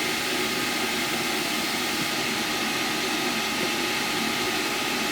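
Shop vacuum running in blower mode, a steady loud whooshing drone, pushing air into a car's tailpipe to pressurize the exhaust system for a soap-and-water leak test.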